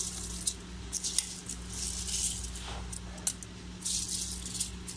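Soaked rice being dropped by the handful into a pressure cooker of watery tomato mixture: grains falling into the liquid in several uneven bursts of soft rattling.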